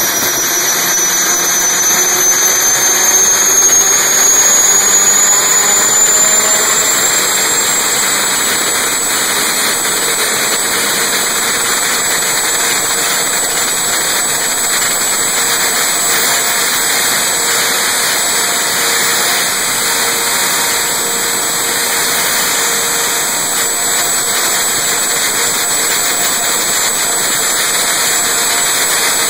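Lycoming T53 gas turbine engine running: a high whine climbs in pitch over the first several seconds as the engine spools up after starting, then holds steady over a loud, even rushing noise.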